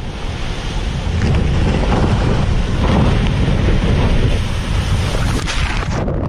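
Strong storm wind blowing hard against the microphone: a loud, dense, steady low rumble.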